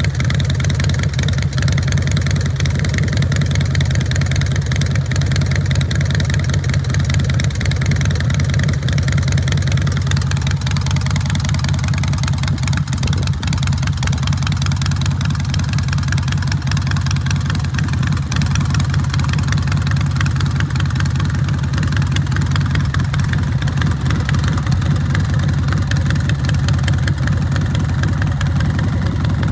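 Carbureted 111 cubic inch (1,820 cc) S&S V-twin motorcycle engine idling steadily through a custom exhaust.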